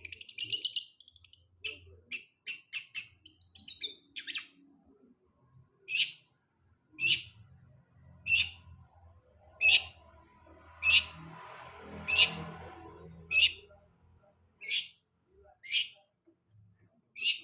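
Long-tailed shrike (cendet) calling. A quick chattering run comes first, then single sharp, high calls repeated about once every second and a bit. It is a lure recording meant to prompt another shrike to sing.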